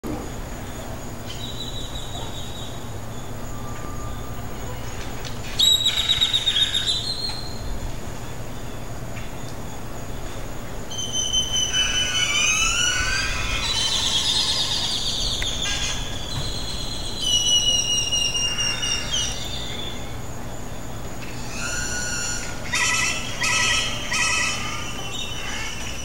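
Birds calling and whistling in separate bursts: a loud call about six seconds in, a run of rising and falling whistles about halfway through, and quick repeated calls near the end, over a steady high insect trill and a low steady hum.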